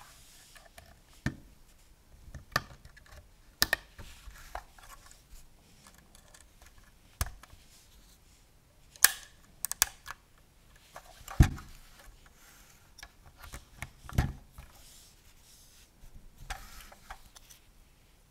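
LEGO plastic bricks being handled and pressed together: irregular sharp clicks and snaps, a dozen or so spread unevenly, with a few louder snaps as pieces seat onto the studs.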